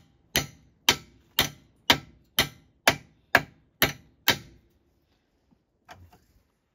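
Sharp blows struck in a steady rhythm, about two a second, ten in all, stopping about four and a half seconds in; a couple of faint knocks follow near the end.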